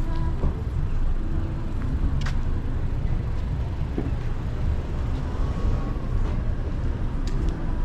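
Steady low rumble of street traffic, with faint voices and a few light clicks in the background.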